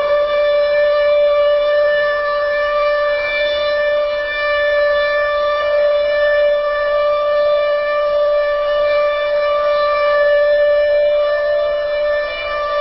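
A single long horn blast, like a shofar or trumpet, held on one steady note and loud throughout, then cutting off abruptly at the end. In this rapture scene it stands for the trumpet call announcing Christ's return.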